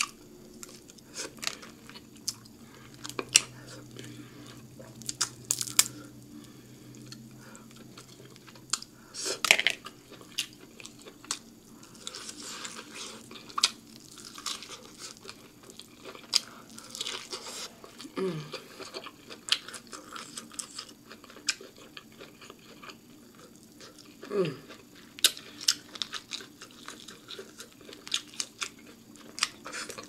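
Close-up eating of seafood boil: chewing and crunching with many sharp clicks as crab shell is picked apart and corn on the cob is bitten. A couple of short falling 'mm' hums.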